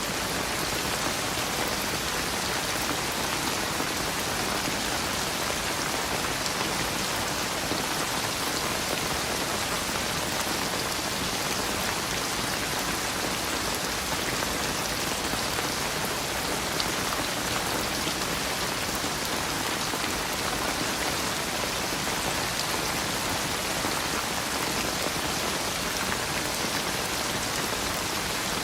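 Steady rain falling on a surface: an even hiss with a fine scatter of individual drop hits that doesn't rise or fall.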